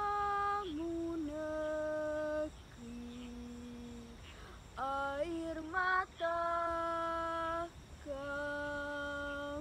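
A woman's voice singing a slow melody in long held notes, with a quieter, lower note about three seconds in.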